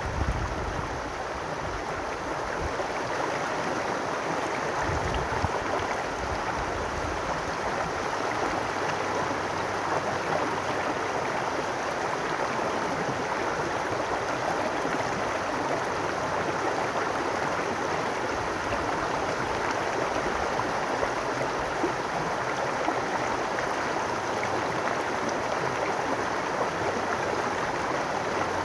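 Babbling brook: shallow water running and gurgling over stones, a steady even rush.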